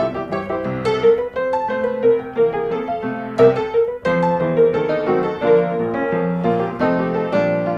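Background music played on piano: a steady run of short notes over held lower notes.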